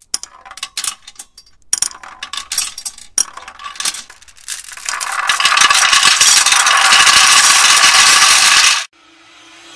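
Glass marbles clicking against each other in a hand and a mesh net bag, then a dense, loud clatter for about four seconds as the marbles are poured into a motorcycle's stainless exhaust muffler; the clatter cuts off suddenly near the end.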